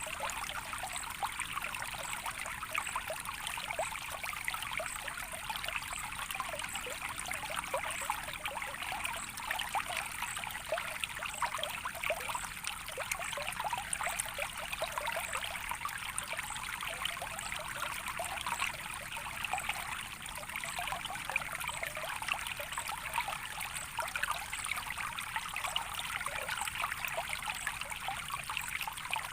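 Shallow water running and trickling steadily, a continuous babble of many small splashes with no pauses.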